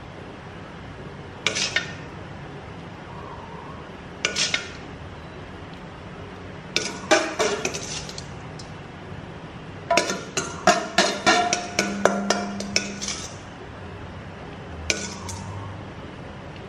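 A spoon clinking against a china plate and sauce bowl as dipping sauce is ladled over shrimp. The clinks come in small groups, with a busy run of them in the middle.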